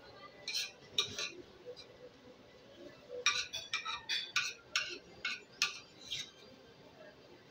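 A run of short, light clinks of small hard objects: a few near the start, then a quicker string of about ten between three and six seconds in.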